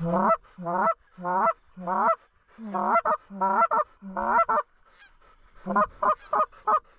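Canada goose honks in a quick run, about two a second. Each honk breaks from a low note up to a higher one, and there is a short pause about two-thirds of the way through.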